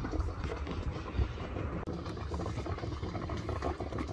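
Propane burner under a double boiler running with a steady low rumble.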